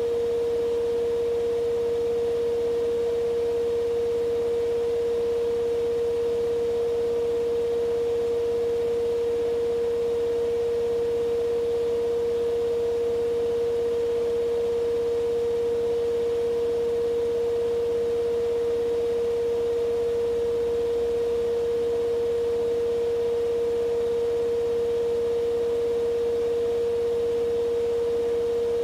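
Siemens iQ500 front-loading washing machine (WM12T80TR, 9 kg, 1200 rpm) running in its spin cycle at a steady drum speed. It gives a steady hum with one strong whining tone, and there is no knocking and no roar. The machine is described as healthy.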